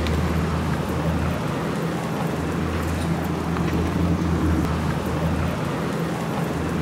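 Steady outdoor street noise on a handheld camera: a continuous low hum and rumble with an even hiss over it and a few faint ticks.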